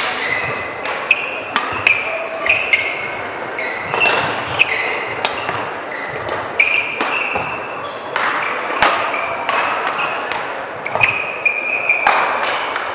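Badminton play: many sharp racket hits on the shuttlecock at an uneven pace, mixed with short high squeaks from shoes on the court floor.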